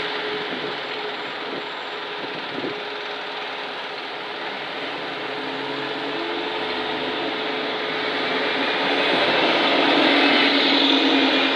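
A single-deck bus approaching and driving past close by, its engine and tyres growing louder to a peak about ten seconds in, over a steady hum of traffic.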